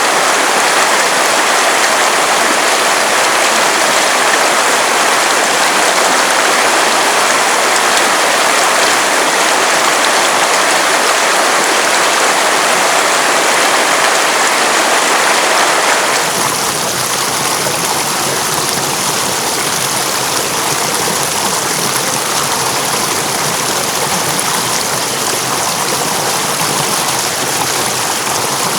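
A river rushing steadily. About sixteen seconds in, the rush changes abruptly to a slightly quieter, deeper sound.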